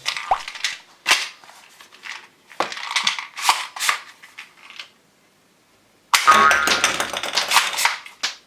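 Toy gun shooting sounds: a quick run of short, sharp shot-like pops, a pause of about a second, then a longer buzzing burst of rapid fire with electronic tones.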